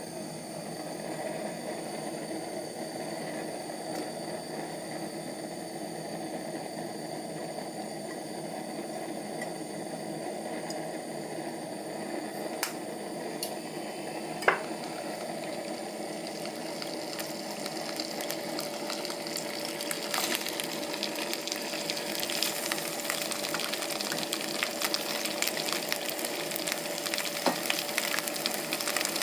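Vegetables starting to sizzle in oil in a nonstick wok over a portable butane gas stove, the burner hissing steadily underneath. The sizzle turns louder and more crackling about two-thirds of the way through, and there is one sharp knock about halfway.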